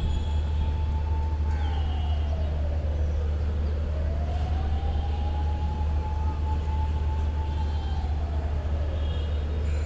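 A siren wailing slowly: its pitch rises, holds for a few seconds and then falls, about once every six seconds, over the steady low rumble of city traffic.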